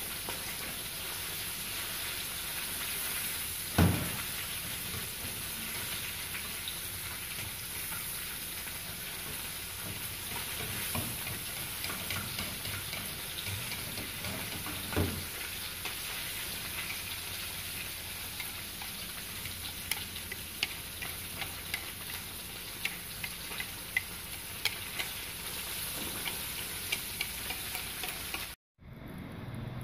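Battered kissing gourami deep-frying in hot oil: a steady sizzle with scattered small pops, and two louder knocks, about 4 and 15 seconds in.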